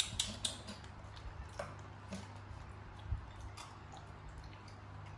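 Faint scattered clicks and taps, a few a second at first and then sparser, over a steady low hum.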